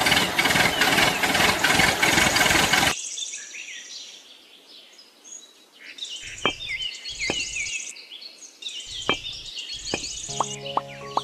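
A loud rushing noise for about three seconds, then birds chirping, with a few soft taps as small clay blocks are set down on corrugated cardboard.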